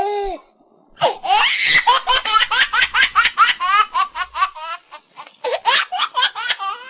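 Pet talking bird mimicking a small child's happy giggling laugh: a quick run of short, high, falling "ha" notes at about five a second, starting about a second in with a brief break about two-thirds of the way through.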